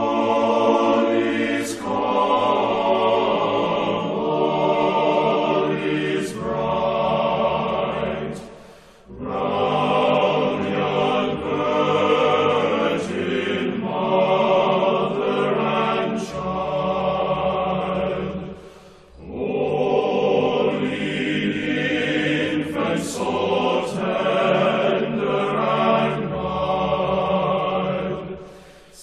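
Choir singing a slow piece in long, held phrases, with short breaks between phrases about every ten seconds.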